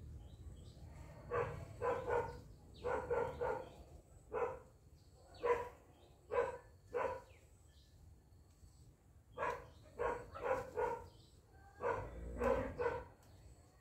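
A dog barking repeatedly in quick runs of two or three barks, with short pauses between the runs.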